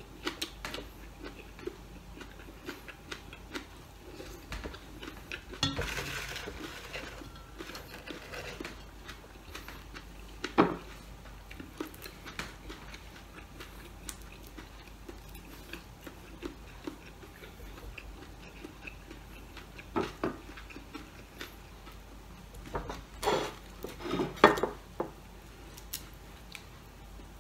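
Scattered light clicks and clinks of fingers and food against china plates, with brief rustling, as cooked shrimp are peeled by hand at the table.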